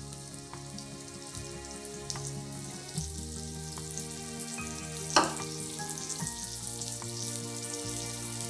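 Oil sizzling and crackling steadily around a coated surmai (seer fish) steak shallow-frying in a pan, over background music with held notes. There is one sharp tap about five seconds in.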